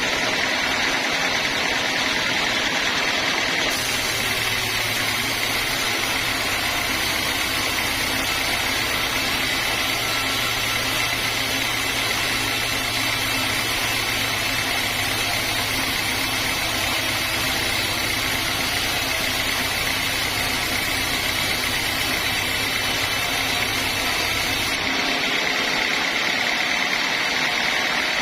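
Sawmill machinery running steadily with a constant hissing noise. A deep engine hum comes in suddenly about four seconds in and drops out near the end.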